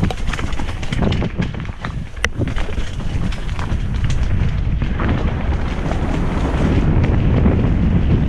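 Wind buffeting a helmet-mounted camera's microphone during a fast mountain bike descent on a dirt trail: a steady low rumble with frequent clicks and knocks as the bike rattles over rough ground.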